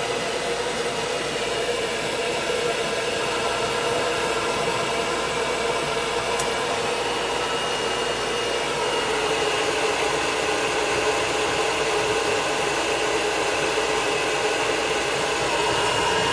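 Hair dryer running steadily with a whining motor, blowing on a dog's wet coat.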